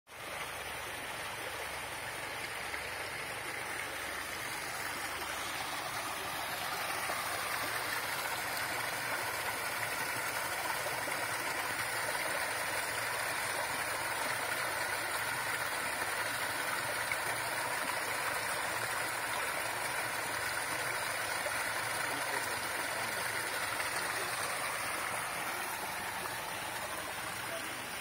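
Mountain stream rushing and splashing over rocks in small cascades, a steady rush of water that grows a little louder about seven seconds in.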